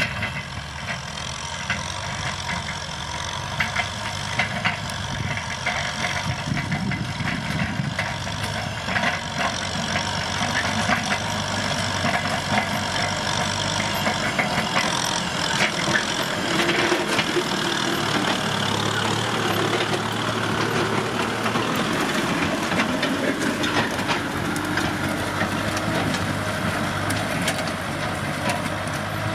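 Kubota M6040SU tractor's diesel engine running steadily under load while ploughing, with frequent light knocks and crackles from the disc plough breaking up dry, stubbly soil.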